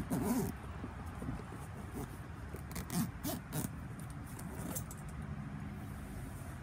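Handling noises: rustling with scattered clicks and knocks, clustered near the start and around three seconds in, over a steady low hum.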